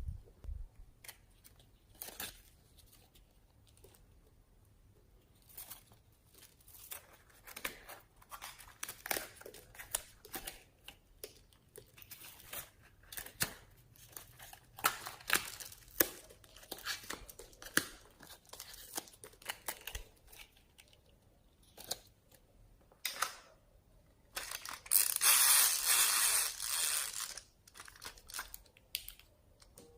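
Hands squishing and stretching slime, giving scattered sticky clicks, pops and crackles, with a louder, denser stretch of crackling a few seconds before the end.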